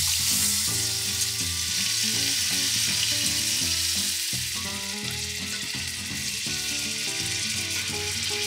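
Wiper egg sack frying in butter in a pan, sizzling steadily.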